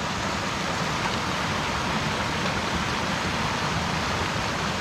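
Mountain stream rushing over rocks at a trail crossing: a steady, even rush of water.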